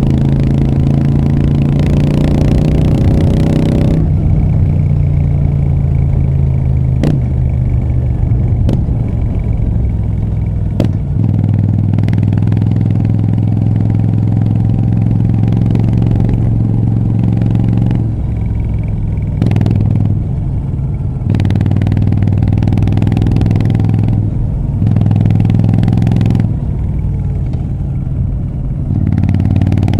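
Moto Guzzi V7 III Rough's air-cooled 90-degree V-twin running loud through short Mistral aftermarket exhaust pipes while riding, the throttle repeatedly opened and eased off so the engine note swells and drops back. A few sharp clicks sound a few seconds in.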